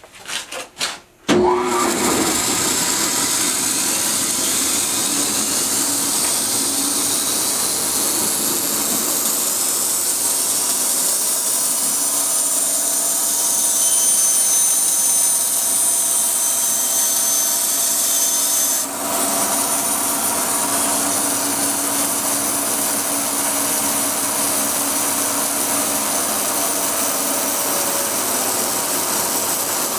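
High-speed bandsaw with a friction blade, in high gear at 10,800 feet per minute, starting up about a second and a half in, its whine climbing for several seconds before it settles into a steady run. Partway through it cuts through a stainless steel exhaust tube, and its sound shifts.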